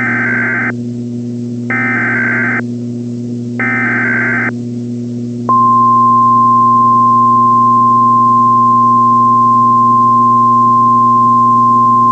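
NOAA Weather Radio Emergency Alert System activation: three short warbling SAME data bursts (the digital alert header) about a second apart. About five and a half seconds in, the steady 1050 Hz weather radio alert tone starts and holds. A low steady hum runs underneath.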